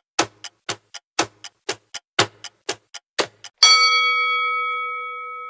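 Quiz countdown-timer sound effect: a clock-style tick-tock of about four ticks a second, alternating loud and soft. About three and a half seconds in the ticking stops and a bright chime of several tones rings out and slowly fades, marking the answer reveal.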